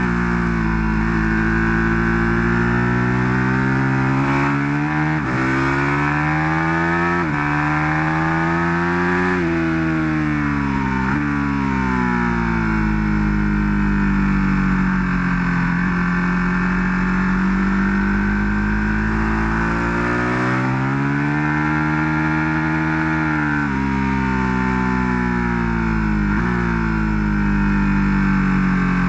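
Ducati 1299 Panigale S's V-twin engine under hard riding on a race track, its pitch climbing and sinking with the throttle, with several sudden drops in pitch at gear changes. Heard from an onboard camera behind the fairing, over a steady wind rush.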